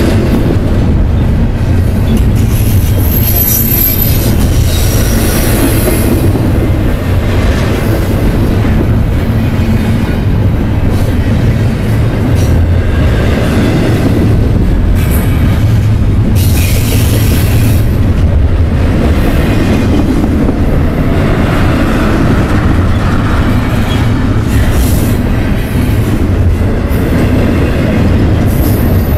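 Double-stack intermodal freight train's container-loaded well cars rolling past close by: a loud, steady rumble of steel wheels on rail, with brief high wheel squeals a few seconds in.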